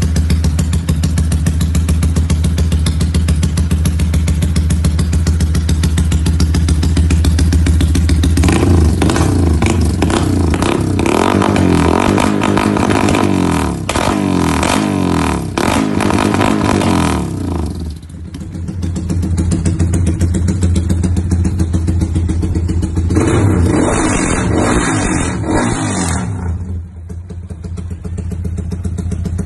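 Yamaha Y15ZR (MX King 150) single-cylinder four-stroke running through a modified aftermarket exhaust, idling with a lumpy rumble from its altered ignition timing. About eight seconds in it is revved up and down repeatedly for several seconds with sharp pops from the exhaust, then drops back to idle. A second, shorter burst of revving follows before it settles to idle again.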